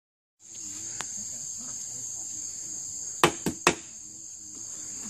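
Steady high insect trill, with a single light tap about a second in and then three quick, loud knocks of a steel brick trowel against the mortar wheelbarrow about three seconds in.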